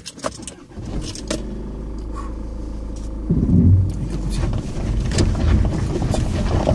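A car rolling down a steep loose-gravel track, heard from inside the cabin. A steady low engine hum gives way, about three seconds in, to a louder rumble of tyres on gravel with scattered clicks of stones.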